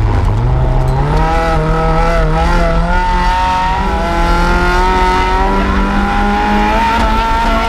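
Mazda MX-5 rally car's four-cylinder engine under hard acceleration: the revs dip right at the start, climb back over the first second, then hold high and creep slowly upward, over road noise.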